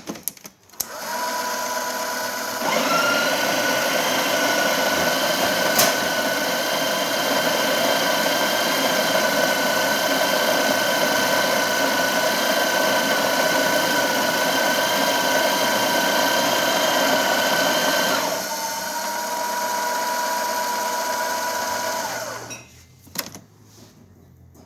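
Breville Oracle's built-in grinder motor running: it spins up with a short rising whine and holds a steady, high-pitched whine for about fifteen seconds, then runs more quietly for a few seconds before stopping.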